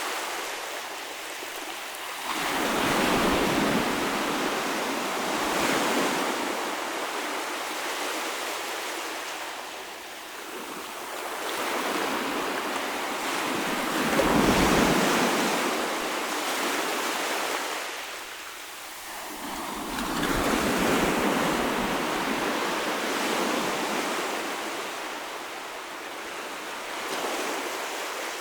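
Ocean waves breaking and washing up the shore, swelling into three surges with quieter lulls between; the loudest surge comes about halfway through.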